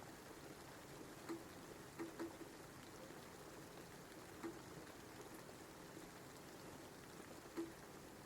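Faint, steady rain with about five louder single drop hits scattered through it.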